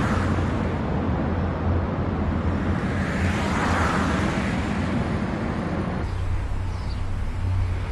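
Small Fiat 500 hatchbacks driving, engine and tyre noise with a steady low hum, swelling as a car passes about three to four seconds in. About six seconds in, the sound changes suddenly to a quieter road sound with a few faint bird chirps.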